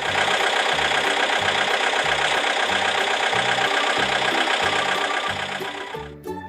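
Excavator sound effect: a heavy engine running steadily with a rattling, knocking texture, stopping abruptly about six seconds in. A children's background tune with a repeating bass line plays underneath.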